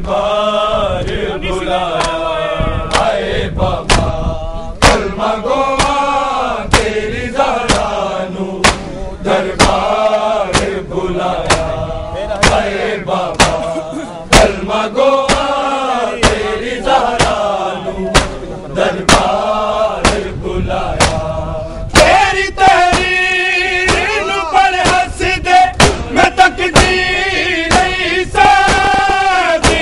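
A noha chanted by male voices in a mournful, repeating melody, with the rhythmic slaps of many men beating their chests in matam keeping time. The singing grows stronger about two-thirds of the way through.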